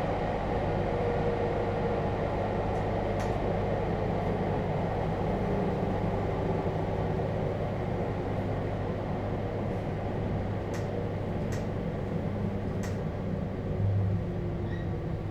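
Onboard running sound of a JR Hokkaido 721 series EMU motor car with a Toshiba GTO-thyristor inverter: a steady rumble of wheels on rail under a motor whine that glides slowly downward as the train loses speed. A few light, sharp clicks come through, mostly in the second half.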